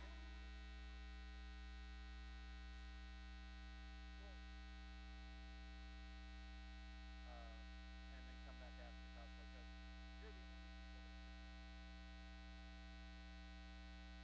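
Low, steady electrical mains hum with many overtones, with faint snatches of distant voices now and then.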